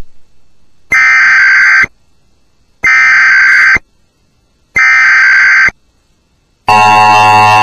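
Emergency Alert System monthly test: three loud, identical one-second bursts of the digital SAME header data tones, about a second apart, then near the end the steady two-tone EAS attention signal begins.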